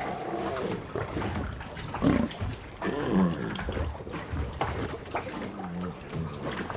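Bengal tiger growling several times, with water sloshing underneath.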